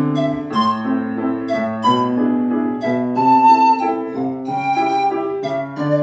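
Pan flute playing a slow melody of held notes over piano accompaniment, the piano striking chords beneath it.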